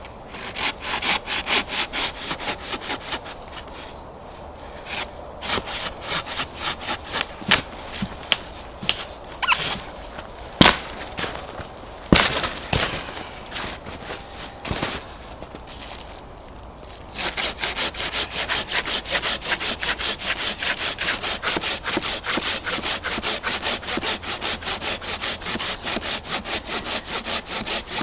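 Hand saw cutting wood in rhythmic back-and-forth strokes. The strokes come in short runs, with a few sharp cracks around the middle, then settle into a quick, steady sawing rhythm for the last ten seconds or so.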